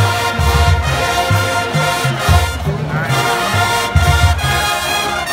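Marching band playing: brass ensemble holding chords over a low brass bass line that moves in a steady rhythm.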